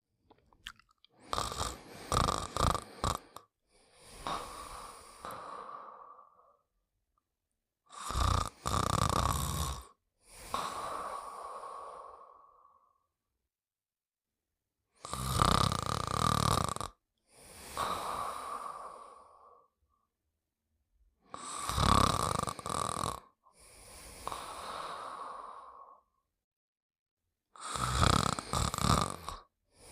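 Snoring in slow, regular breaths, five in all, about one every six to seven seconds. Each breath is a louder, stuttering snore followed by a softer, smoother one, with a short silence before the next.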